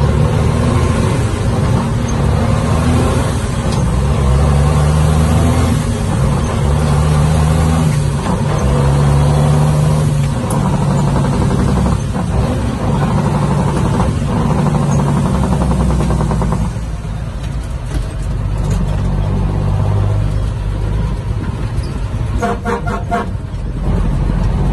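Dump truck's diesel engine running under load, heard from inside the cab, its note climbing and dropping again and again as the truck is driven through the gears. About two-thirds through it eases off and becomes quieter and duller.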